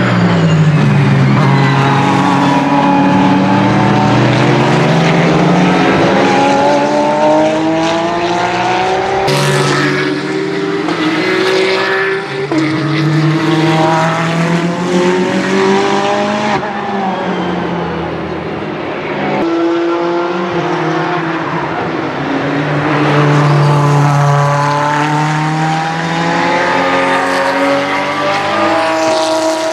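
Ferrari 488 GT3 EVO race car's twin-turbocharged V8 at racing speed, the engine note climbing and falling in pitch as the car accelerates, shifts and goes by, over several passes that cut abruptly from one to the next.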